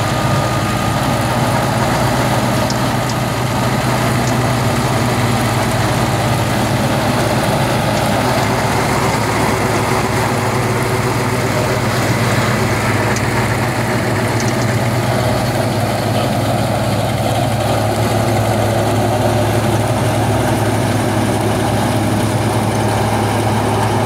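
Massey Ferguson 385 tractor's diesel engine running steadily under load as it pulls an implement through wheat stubble.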